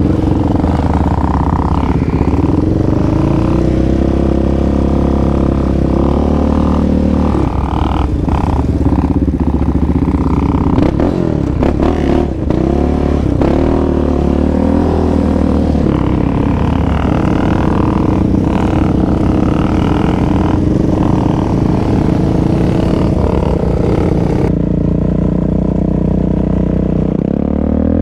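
Yamaha Raptor 700R sport quad's single-cylinder four-stroke engine running under riding load, its pitch rising and falling as the throttle is worked, with clatter and knocks from the machine over the rough dirt trail.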